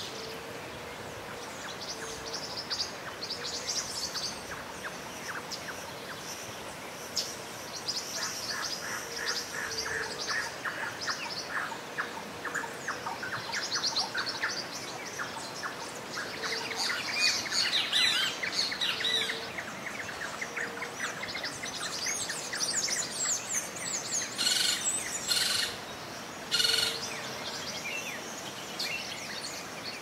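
Chorus of songbirds: many overlapping chirps and trills, busiest in the second half, with a couple of louder rasping calls near the end, over a steady background hiss.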